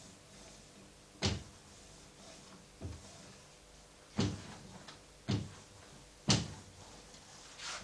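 Small hand ink roller knocking against a collotype plate on a glass sheet as the plate is inked in short strokes: a series of about five sharp knocks roughly a second or so apart, with a softer one near the end.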